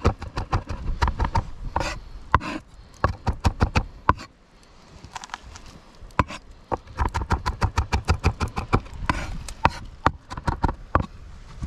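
Large kitchen knife chopping garlic and green onion on a wooden cutting board in quick repeated strokes, several a second. The chopping stops for about two seconds a little before the middle, then starts again.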